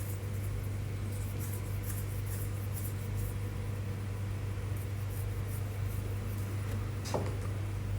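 Steady low hum of room tone, with faint short scratching strokes in the first three seconds, like a pen or marker writing.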